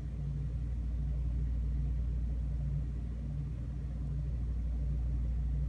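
Steady low droning hum with a gentle, even pulsing; no distinct clicks or knocks from the lock parts stand out.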